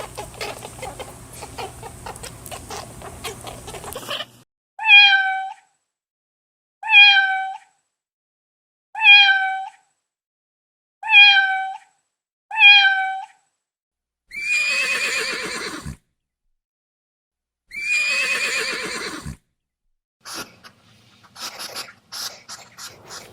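A cat meowing: five short, even meows about two seconds apart, then two longer, rougher cries that fall in pitch.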